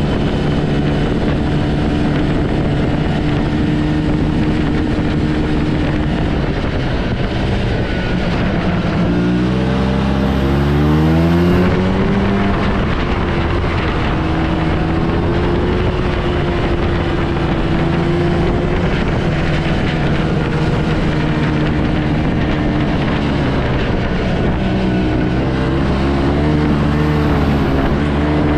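Yamaha Bravo snowmobile's single-cylinder two-stroke engine running under way. It revs up with a rising pitch about nine seconds in, holds a higher steady note, and climbs again near the end.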